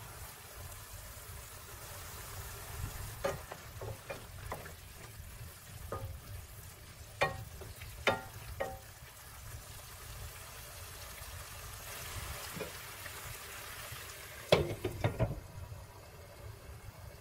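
Chopped poblano peppers sizzling in a pan with a little water, lid off, while a spatula knocks and scrapes against the pan several times. Near the end the glass lid clatters back onto the pan and the sizzle drops away.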